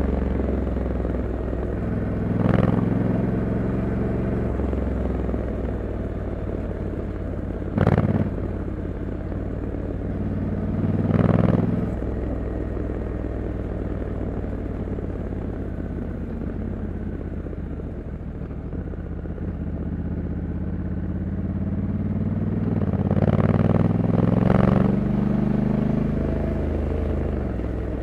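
2021 Honda Africa Twin 1100 DCT's parallel-twin engine running while ridden at an easy pace in D mode, its note rising and falling. There are several short louder moments along the way.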